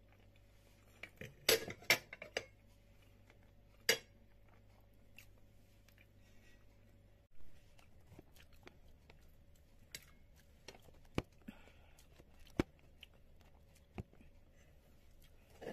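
Metal fork and knife clinking and scraping on a plate while cutting pancakes: a cluster of sharp clinks between about one and a half and two and a half seconds in, another near four seconds, then scattered lighter clicks.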